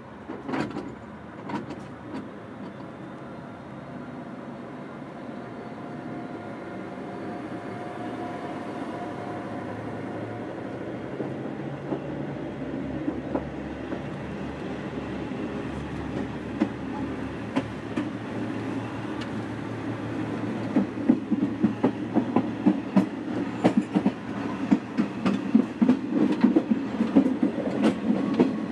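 JNR-era KiHa 47 diesel railcar running, heard from the gangway between cars: the diesel engine pulls as the train gathers speed, growing steadily louder. Rail-joint clacks come only now and then at first, then thick and fast in the last third.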